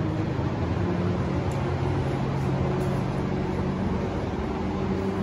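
A steady low mechanical hum with a few held low tones and no change in level, like an engine or shop machine running.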